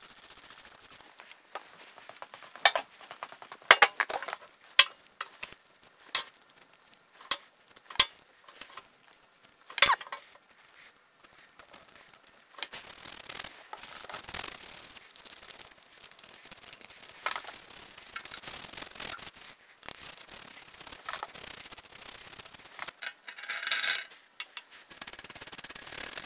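A trigger spray bottle squirted several times in sharp bursts, then a brush scrubbing the oily cast-iron base of a milling machine with a steady rubbing scrape.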